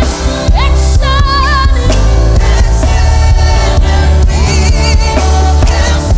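Gospel worship song: a voice singing with vibrato over a band with steady bass and drums.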